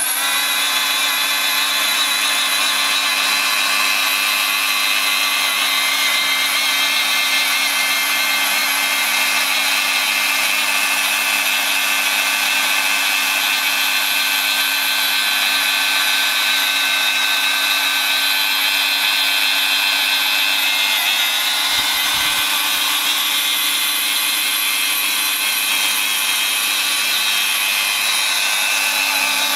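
LST600B hand-held plastic extrusion welder running steadily under load, its motor whining over the hiss of its hot-air blower, while it lays a bead of molten HDPE along the edge of a liner patch.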